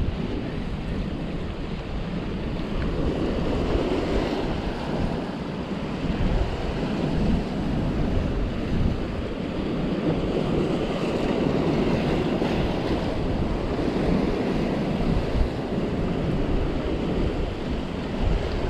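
Sea waves washing and breaking against rocks, with wind buffeting the microphone: a steady rushing noise that swells and eases unevenly.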